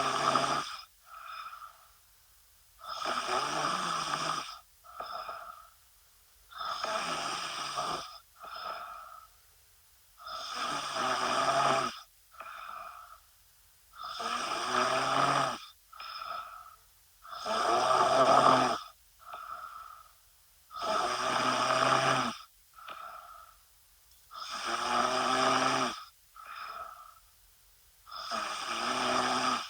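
A woman snoring in her sleep with a steady rhythm: a long loud snore about every three and a half seconds, each followed by a short, softer breath sound.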